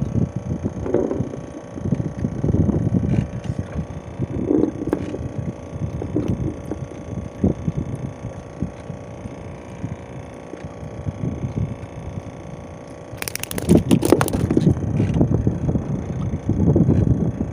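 A boat engine hums steadily under irregular gusts of wind on the microphone, with a short burst of clattering clicks about thirteen seconds in.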